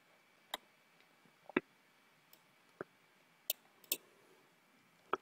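Scattered single clicks of a computer mouse and keyboard, about six at irregular intervals, some faint.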